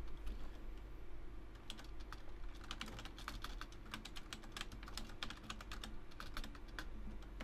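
Typing on a computer keyboard: irregular key clicks, a few at first, then quick runs of clicks from about two seconds in until near the end, over a faint steady low hum.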